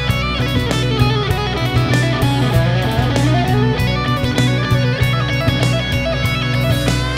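Background music led by guitar, with a steady bass line and a regular beat.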